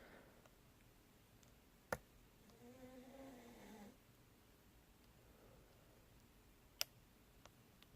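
Quiet lock-picking sounds in an ASSA Ruko 2 core: two sharp metallic clicks, about two seconds in and near the end, with fainter ticks of the pick between. A short low hum sounds about three seconds in.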